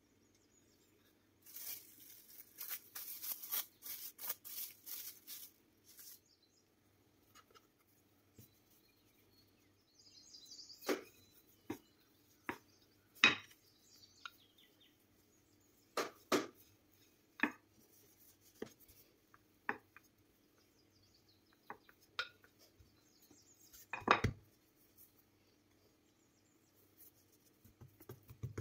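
Wooden rolling pin rolling out dough on a bamboo cutting board, with about a dozen scattered sharp knocks of wood on wood, the loudest near the end. A few seconds in, a dense run of fast, light crackling taps and rustles comes from hands working the floured dough.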